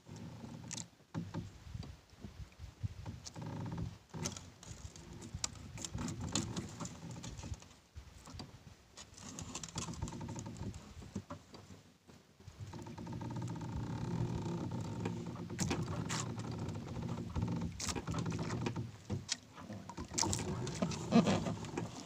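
Nylon fishing handline being hauled in by hand aboard a small boat: irregular rustling, scraping and light knocks of line and hands against the hull. The handling gets fuller from about halfway, with a louder knock near the end.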